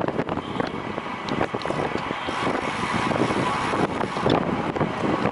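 Wind buffeting a moving camera's microphone: a steady, loud rush with ragged flutter and a few faint clicks.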